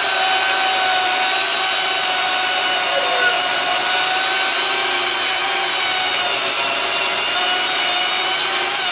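Electric power saw motor running at a steady whine while cutting the bottom wedge of a felling notch in a tree trunk, then winding down in pitch at the end as it is switched off.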